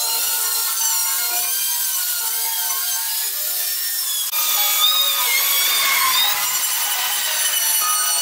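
Electric die grinder with a rotary carving burr grinding into wood, its high whine wavering up and down as the burr bites and eases. About four seconds in, the sound changes abruptly to a higher, brighter whine.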